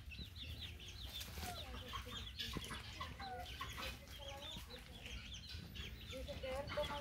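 A brood of chicks peeping over and over in short, high, falling chirps. Lower soft clucks come in here and there.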